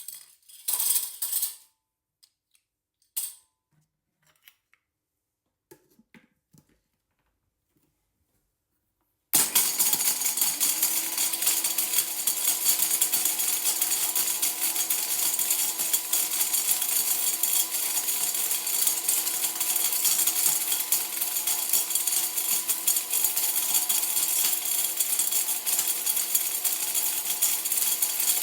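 A few scattered clicks and knocks, then about a third of the way in a blender switches on abruptly and runs steadily, with hard pieces rattling and clattering inside the jar.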